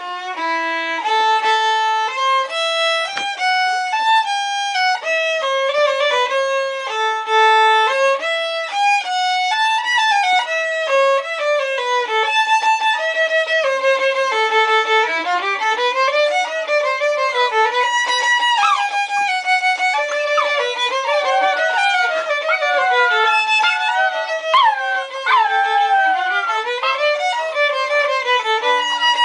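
Violin played, a melody of held notes. From about two-thirds of the way in, six-week-old English Springer Spaniel puppies join in with howls and yips, sliding cries over the violin.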